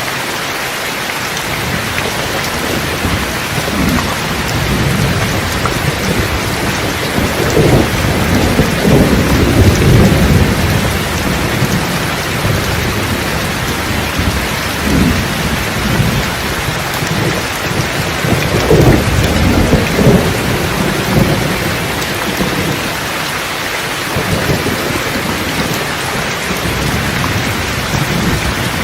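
Steady heavy rain hiss with rolls of thunder rumbling over it: the loudest rumbles come about a third of the way in and again about two-thirds in, with smaller ones between.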